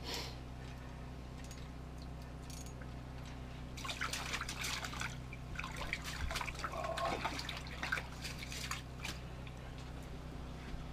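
Water splashing and dripping as a small fish is pulled up out of a hole in the ice, in irregular bursts from about four seconds in for about five seconds, over a steady low hum.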